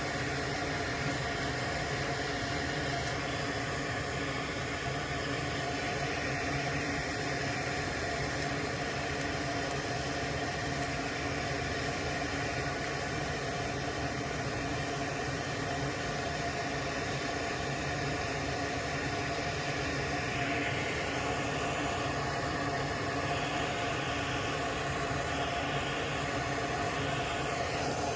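Steady machine hum with an even hiss, holding level and pitch, like a fan or small motor running.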